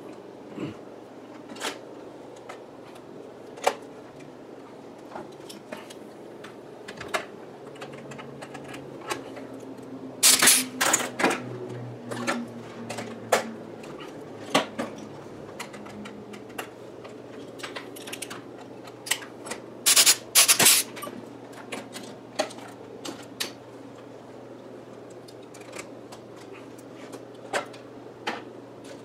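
Scattered sharp metallic clicks and clinks of hand work on aluminium engine baffles, with two short flurries of louder snapping clicks, once about a third of the way in and again about two-thirds in, over a steady low hum.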